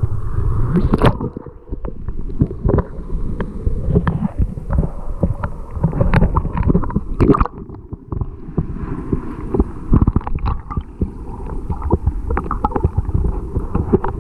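Shallow flowing water heard by a submerged camera: a muffled, continuous rumbling and gurgling of the current, with frequent sharp clicks and knocks throughout.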